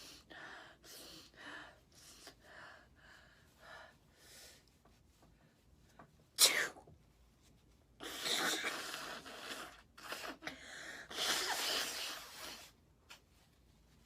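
A woman with a heavily congested nose from a cold sniffing and breathing in short bursts, then one sharp sneeze about six and a half seconds in, the loudest sound. It is followed by two long, noisy bursts of about two seconds each.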